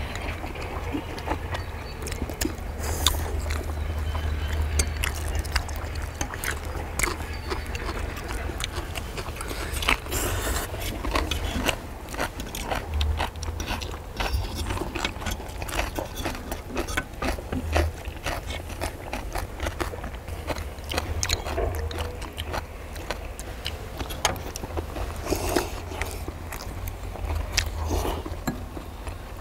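Eating at a cast-iron pot-lid griddle: metal forks, spoons and a knife scraping and clicking against the iron and on the hamburger steaks, with chewing, over a steady low rumble.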